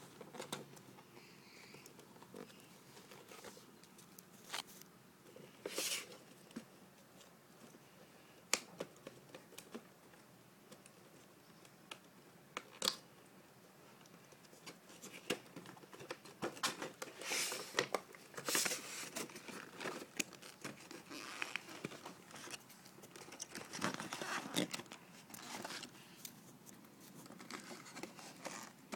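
Toy packaging being handled and opened: plastic and cardboard crinkling and tearing in short bursts, with scattered small clicks and knocks.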